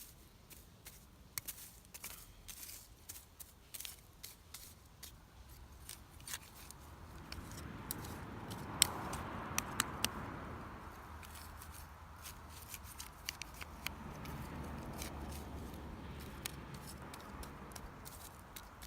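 Wood campfire crackling and popping in irregular sharp snaps, with a soft rushing swell about eight seconds in.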